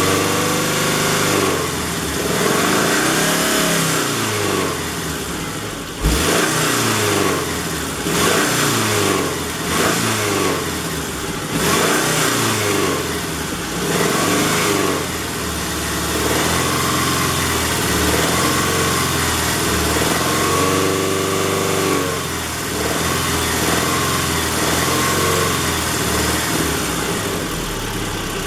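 Subaru Impreza flat-four engine, its revs rising and falling over and over, with one sharp knock about six seconds in. It carries the knocking/popping the owner cannot pin down and fears is rod knock.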